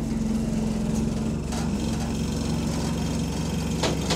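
Bus engine and drivetrain running as the bus travels, heard from inside the passenger saloon: a steady low drone with the vehicle's vibration, the gearbox in limp mode. A single sharp knock comes near the end.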